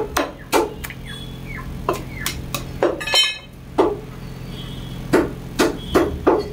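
Butcher's cleaver chopping on a wooden log block: sharp knocks in quick runs of three or four, about three a second, with pauses between the runs.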